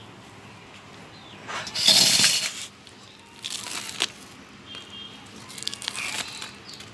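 Ripe palmyra palm fruit being rubbed and squeezed by hand against a steel bowl to work the pulp off its fibres: rubbing noise in short spells, the loudest about two seconds in, with a sharp knock about four seconds in.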